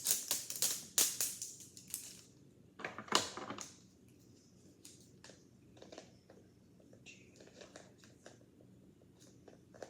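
Plastic toy packaging being handled and opened: a quick run of crinkles and clicks for about two seconds, a louder crackle about three seconds in, then a few faint scattered clicks.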